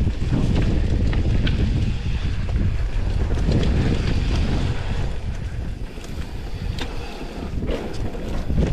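Wind buffeting the microphone as a mountain bike rolls fast down a dirt trail, with tyre noise and the bike rattling. Several sharp knocks come in the second half.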